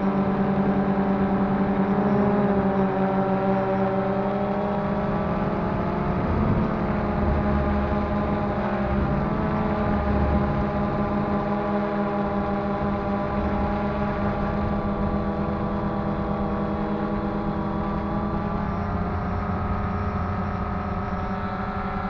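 DJI Phantom 2 quadcopter's motors and propellers running with a steady, even drone. Its pitch wavers a little partway through as the motor speed changes in flight.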